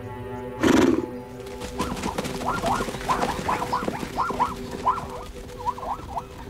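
Zebras calling in alarm: a rapid series of short, rising-and-falling barking calls, about two a second, over background music. A brief loud rasping burst comes just before the calls start.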